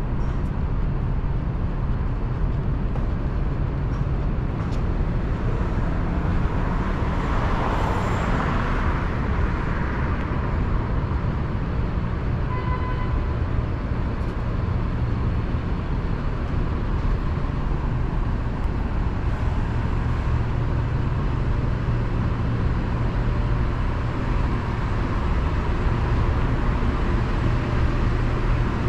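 City street traffic: a steady low rumble of vehicles. One passes close about eight seconds in, and a short beep sounds just after the midpoint.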